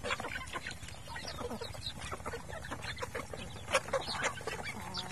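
Flock of chickens clucking and chirping as they peck at feed, many short calls overlapping, with a sharp knock about four seconds in.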